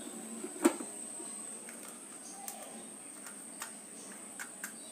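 Light clicks and taps of a metal spoon against a cup and a crisp puri shell while a panipuri is filled, about six in all, the loudest about half a second in.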